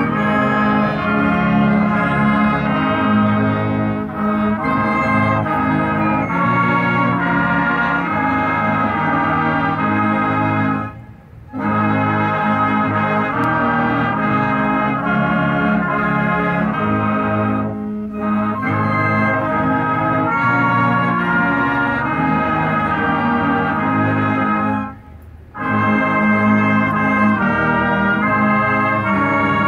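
A school marching band's brass section, with trumpets, trombones and sousaphones, playing a slow piece in long held chords. The sound breaks off briefly between phrases about eleven seconds in and again about twenty-five seconds in.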